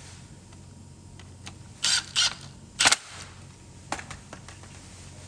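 Small hard chair parts and tools being handled: three quick sharp clacks about two seconds in, then a lighter click about a second later.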